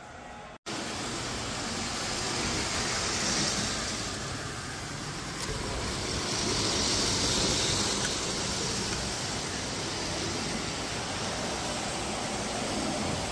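Model trains running on three-rail tinplate track: a steady rolling rumble and hiss that swells twice as trains pass.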